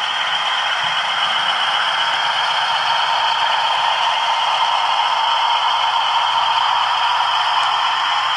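Model diesel locomotives with DCC sound decoders running on the layout. The diesel engine sound plays through the models' small onboard speakers, mixed with the rattle of the wheels and motors on the track. It runs steadily, with a faint low hum joining about five seconds in.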